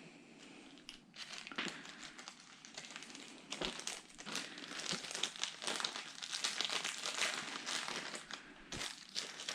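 Plastic packaging crinkling and rustling as small PC parts, spare fan clips among them, are handled. The crackling is busiest in the middle.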